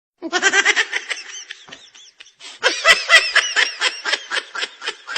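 High-pitched laughter that starts abruptly a moment in. It comes in two bouts, the second a fast run of short repeated bursts.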